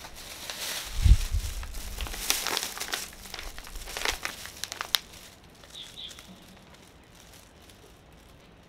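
Thin plastic carrier bag and plastic food packet crinkling and rustling as the packet is pulled out of the bag, with a low thump about a second in. The crinkling dies away after about five seconds.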